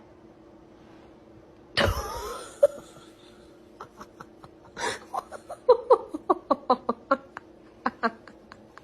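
A sudden loud vocal cry about two seconds in, then a quick run of short, sharp voiced bursts, several a second, until the end.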